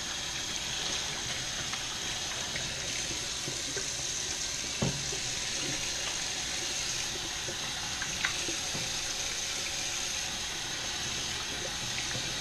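Kitchen sink tap running steadily into the sink, with a couple of light knocks about five and eight seconds in.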